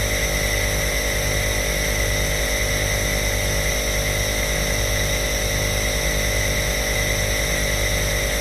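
Compressor nebulizer (inhaler) running: a steady motor hum with a hiss of air. The low hum pulses evenly, about one and a half times a second.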